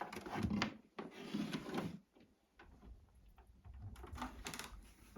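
Plastic computer gear being handled and set in place on a desk: knocks, clicks and rubbing as a Macintosh keyboard and its cables are moved, with a quiet pause midway and a few sharper clicks near the end.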